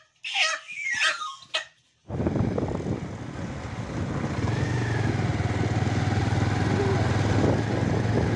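A white broiler chicken, held up by its legs, squawks several times. At about two seconds it gives way to a motorbike ride: the engine drones steadily while wind rushes over the microphone.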